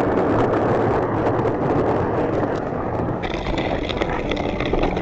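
Loaded sled with a kayak and gear being dragged over a rough trail: a steady, gritty scraping rumble. About three seconds in, a higher hiss with faint steady tones joins it.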